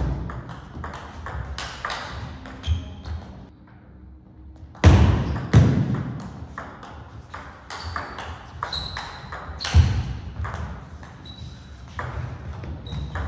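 Table tennis rally: the plastic ball clicking sharply off the rackets and table in quick succession, with a few heavier thuds in between.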